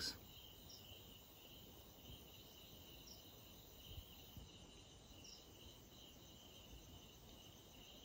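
Faint, steady chirring of crickets in a night forest, the only sound in an otherwise near-silent stillness.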